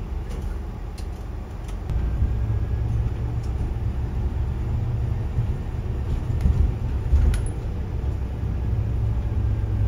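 Bus engine and road rumble heard from inside a moving city bus: a steady low rumble that grows louder about two seconds in, with a few light clicks.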